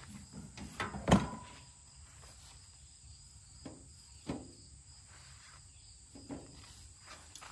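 Square metal fire pit being lifted off a garden cart and set down on the grass: one sharp metallic clank with a short ring about a second in, then a few softer knocks as it is shifted into place. A faint steady insect trill runs behind.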